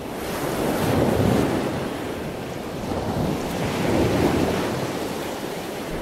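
Ocean waves surging, a rushing wash of surf that swells twice, about a second in and again about four seconds in.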